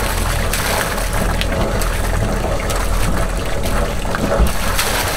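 Sea water rushing and splashing along the hull of a moving sailing yacht, a steady wash broken by many small irregular splashes.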